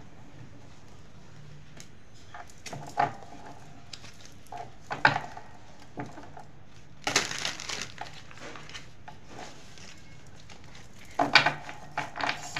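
Tarot cards being handled and shuffled by hand: scattered taps and rustles, a longer rustling burst of shuffling about seven seconds in, and a cluster of taps near the end. A faint steady hum runs underneath.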